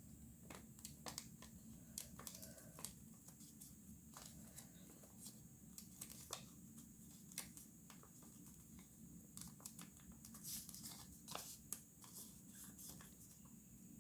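Origami paper being folded and creased by hand: faint crinkling and scattered short crisp clicks, busiest a little past two-thirds of the way through, over a low steady room hum.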